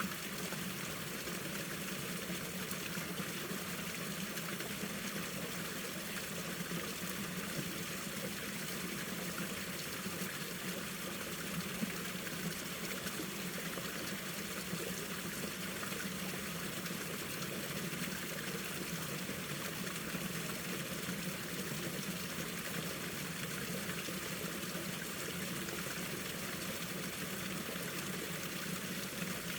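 Mountain stream water flowing steadily, an even, unbroken rush of water.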